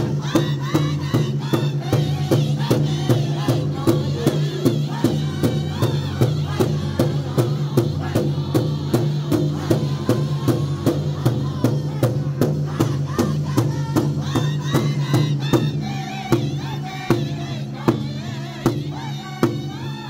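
Powwow drum group singing around one large drum: men strike the drum together in a steady beat of about three strokes a second while singing high as a group, with the women standing behind joining the song. The drumming and singing grow a little softer over the last few seconds.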